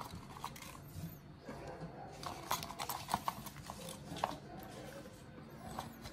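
Irregular light clicks and taps of a small plastic tub and snap peas being handled and laid into a pot of raw stew ingredients, coming in a quick cluster around the middle.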